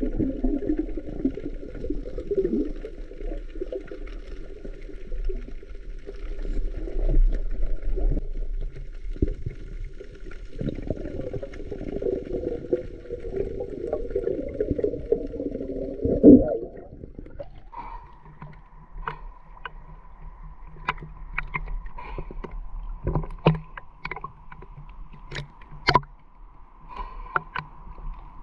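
Muffled underwater sound of water moving and churning around a diver, with a low rumble. About two-thirds of the way in it changes to a steady high tone with scattered sharp clicks.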